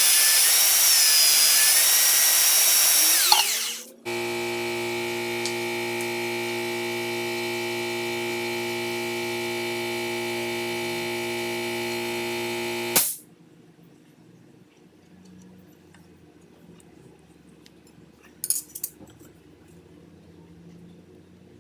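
An electric power tool running under load, then winding down about three seconds in. A steady motor hum follows, cuts off suddenly after about nine seconds, and leaves quiet with a few light clicks near the end.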